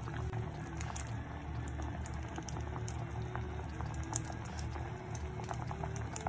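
Green curry boiling in a pot: a steady bubbling with many small pops.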